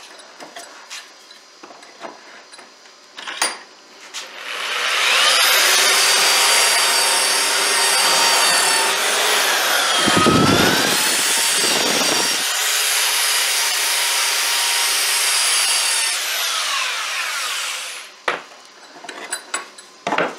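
Electric power tool motor spinning up, running at speed, bogging down as it cuts into wood, then winding down. Light clicks and knocks of handling come before it.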